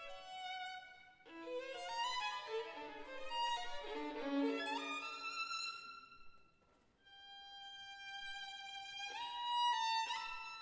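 Violin played with the bow: a run of quick notes, a break of about half a second, then long held notes that step higher near the end.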